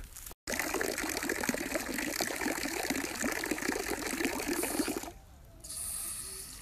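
Water spurting from an outdoor drinking fountain and splashing into its stone basin, running steadily for about four and a half seconds and then shutting off.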